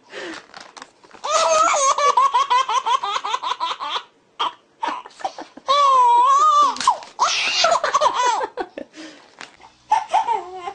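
Baby belly-laughing hard in high-pitched peals, with a long run of laughter and a held, wavering squeal, broken by short pauses for breath. Near the end a second baby's laughter takes over.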